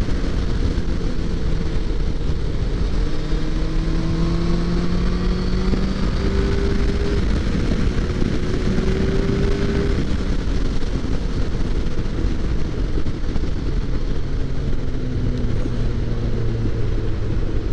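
Motorcycle engine running under way, its pitch climbing slowly a few times as it pulls and dropping lower for the last few seconds, under a steady rush of wind and road noise.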